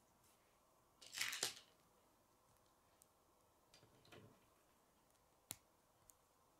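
Plastic K'nex pieces being handled: a short rattling rustle about a second in, a softer shuffle in the middle, and one sharp click near the end.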